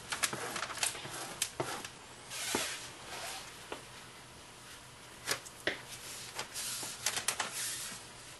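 Plastic perforated release film crinkling and rustling as gloved hands pull and smooth it over a wet epoxy carbon fiber layup, with scattered sharp clicks and a few short swishes.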